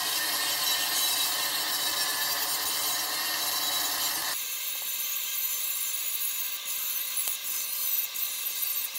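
Angle grinder grinding down a 6010 root pass weld on steel pipe, cleaning the root before the hot pass. A steady abrasive whine that changes abruptly about four seconds in, losing its lower part.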